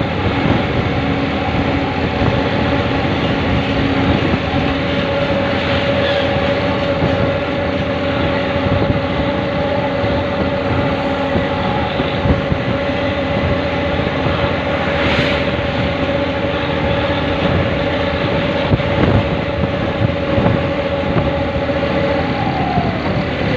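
Vehicles on the move: a steady engine drone over road and wind noise. The engine tone falls near the end as the traffic slows, and there is a brief hiss about midway.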